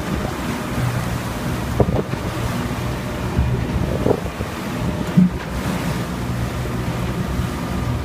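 Wind rushing over the microphone on a boat at sea, over a steady low hum, with a few brief knocks near the middle.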